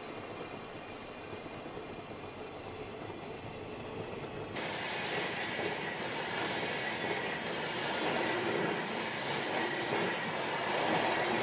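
Model trains running along the layout's track: a steady rolling rumble of wheels and motors that grows louder about four and a half seconds in.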